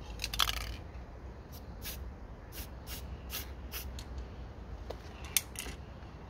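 Aerosol spray-paint can sprayed in short bursts of hiss: a longer spray just after the start, then a run of quick puffs, and two more near the end.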